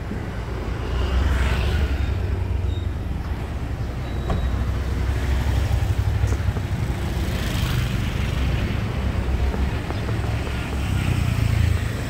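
Road traffic: motor vehicles passing close by over a steady low rumble, swelling as one goes by about a second in and another just past the middle.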